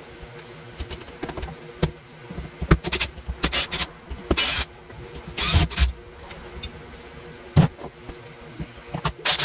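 Teardown work noises: scattered knocks and clicks, with several short bursts of scraping or rustling as parts are handled and pulled apart; a sharp knock a little after seven seconds is the loudest.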